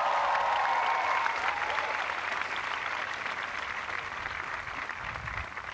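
Large crowd applauding and cheering, with whoops in the first two seconds; the clapping gradually dies down toward the end.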